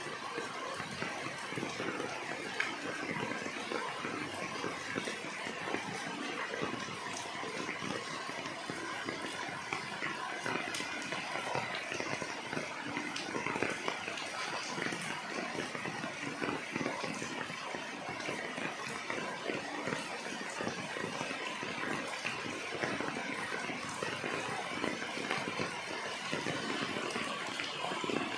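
Steady rain falling on large golden pothos leaves and the surroundings: a constant hiss of rainfall dotted with many small drop ticks.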